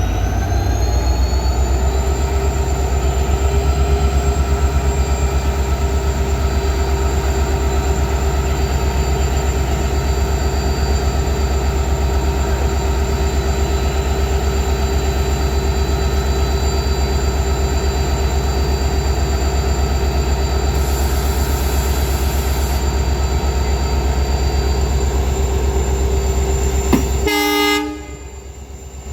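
WDG4 diesel locomotive's EMD 710 two-stroke diesel engine running steadily while shunting: a heavy low throb with a steady whine over it. Near the end there is a short horn blast, then the engine sound drops away.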